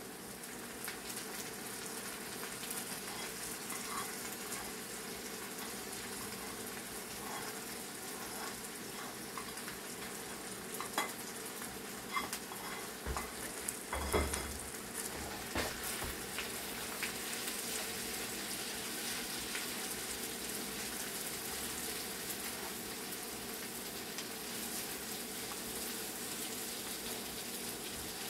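Boiled, crushed chicken frying in hot oil with chili, garlic and ginger, a steady sizzle while it is stirred in the pan. A few utensil knocks and scrapes against the pan come around the middle, with one dull thump.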